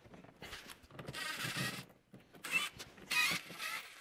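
Cordless drill or driver whirring in three short bursts, a longer one about a second in and two shorter ones near the end, as it works the front screws holding a snowmobile hood.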